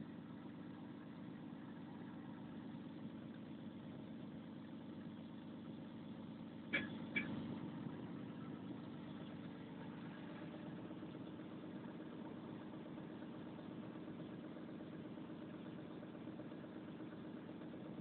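Volvo 360 excavator's diesel engine idling steadily, with two sharp knocks close together about seven seconds in.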